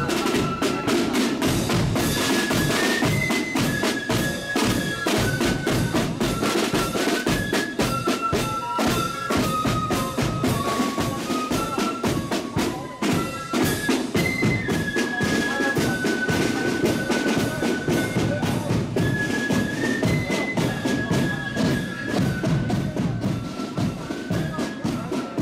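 A marching corps of drums playing a tune: flutes carry a single stepping melody in unison over steady rattling side drums and a bass drum beat.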